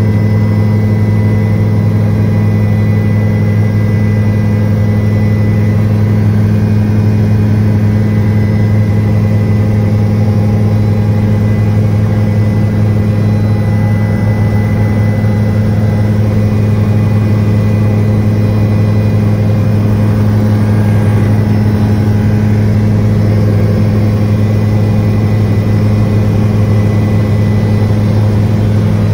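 Helicopter in flight heard from inside the cabin: rotors and engine running with a loud, steady drone that does not change.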